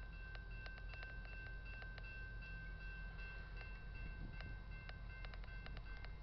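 Railroad grade-crossing warning bell ringing steadily with a high two-tone sound, warning that a train is approaching. Faint clicks are scattered through it.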